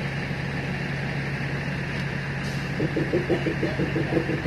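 Diesel engine of a DEMU train running with a steady low hum. About three seconds in, a rapid rhythmic pulsing of about six beats a second joins it.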